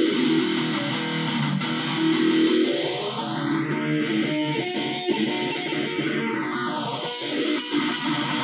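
Guitar played through an effect that sweeps its tone slowly up and down, rising over about four seconds and falling again over the next four, like a slow jet-like swoosh over the sustained notes.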